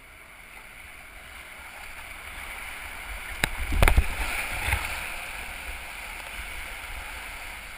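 Whitewater rapids rushing around a kayak, the noise swelling towards the middle. A few sharp knocks and splashes come a little past halfway.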